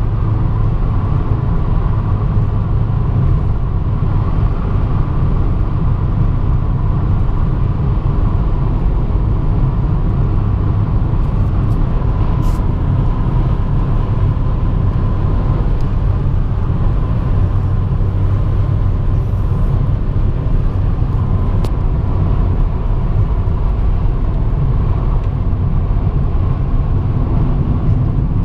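Steady road and engine noise heard inside a car cruising at highway speed: an unbroken low rumble with a faint steady hum above it, and two faint ticks partway through.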